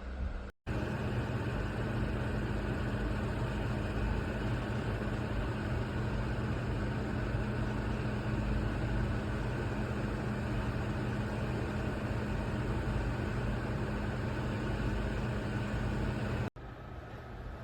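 Vornado Transom window fan running steadily: a constant rush of air over a low motor hum. It cuts in abruptly about half a second in and cuts off abruptly near the end.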